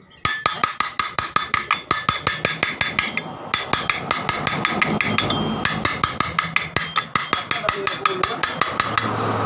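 Ratchet wrench clicking in a steady run of sharp metallic clicks, about four to five a second, with a brief pause about a third of the way in, as the nut on a scooter's CVT front pulley is turned.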